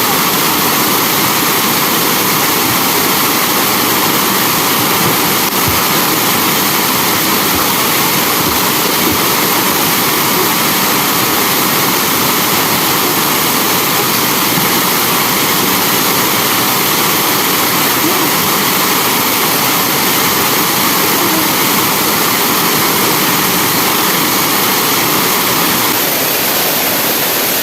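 Waterfall pouring into a pool at close range, a loud steady rush of falling water.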